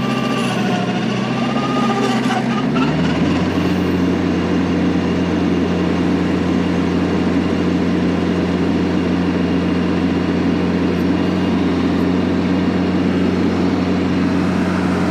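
TYM 474 tractor's diesel engine running steadily at working speed, driving a PTO Baumalight stump grinder. A wavering whine in the first couple of seconds; about three seconds in the engine note steps up and then holds steady.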